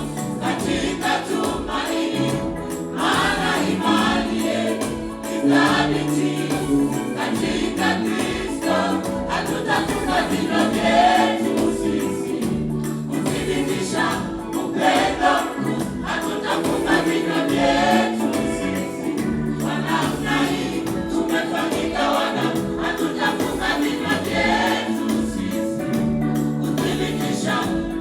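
A choir singing a Swahili gospel song over an accompaniment with a steady beat and bass line.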